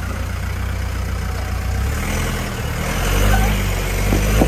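The Jeep Nukizer 715 concept truck's V8 engine running at low revs as the truck crawls up a steep rock ledge, getting louder about two to three seconds in as the throttle is added. A short knock comes near the end.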